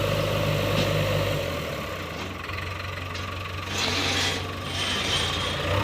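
Heavy diesel machinery idling with a steady low engine note that eases off about a second and a half in, with a couple of short hisses near the end.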